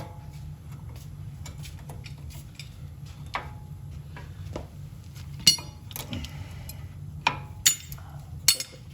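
Metal hand tools and brake parts clinking and clattering, with small clicks throughout and four sharper ringing clinks in the second half.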